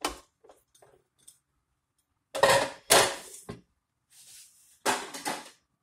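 Shredded carrot being tipped into a perforated aluminium colander set in a pot: a few short bursts of rustling and clatter, the loudest two close together near the middle.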